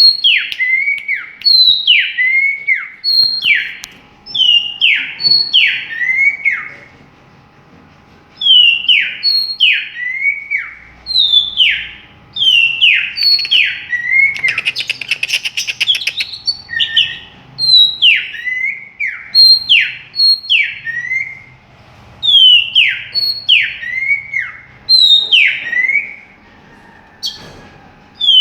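A songbird singing loud, clear whistled notes that slide down in pitch, in quick phrases of two or three repeated over and over with short pauses. About halfway through it breaks into a fast, buzzy rattle.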